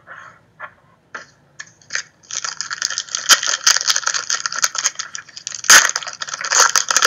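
Foil wrapper of an SP Authentic trading card pack crinkling and tearing as it is ripped open: a dense crackle of crinkles and sharp snaps that starts about two seconds in and is loudest near the end, after a few light taps as the pack is picked up.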